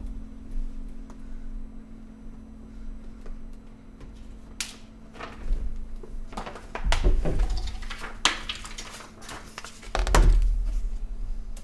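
The low hum of a carillon bell lingering after the last note, over scattered knocks, clacks and thumps of a tablet being handled and a player getting up from the wooden clavier bench. The loudest is a heavy low thump about ten seconds in, close to the microphone.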